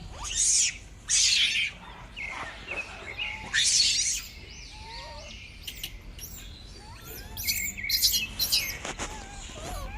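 Birds chirping and calling in many short rising and falling notes, broken by four loud, harsh screeches of about half a second each: one right at the start, one a second in, one around the middle and one near the end.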